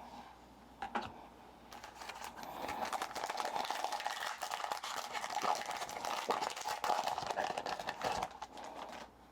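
Foil wrapper of a trading-card pack crinkling and tearing as it is opened. There is a single click about a second in, then dense crackling that stops about a second before the end.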